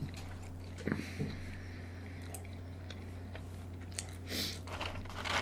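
Close-miked eating: a few soft bites and chewing sounds, over a steady low hum.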